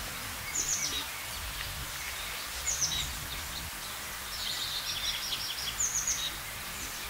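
A songbird singing a short, high phrase that falls in pitch, repeated about every two seconds, with a longer run of notes a little past the middle, over steady low street noise.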